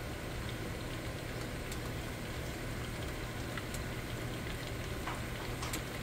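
Butter and sliced onions sizzling softly in a pot over high heat: a steady hiss with faint scattered pops.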